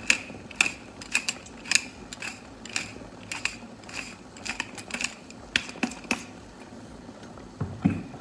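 Wooden pepper mill being twisted, cracking black peppercorns in a run of irregular sharp clicks for about six seconds. A dull knock follows near the end.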